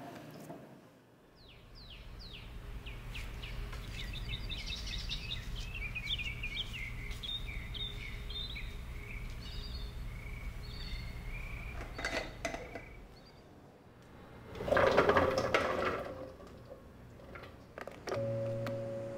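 Outdoor ambience: birds chirping many times in quick short calls over a steady low hum. About fifteen seconds in comes a short, loud burst of noise.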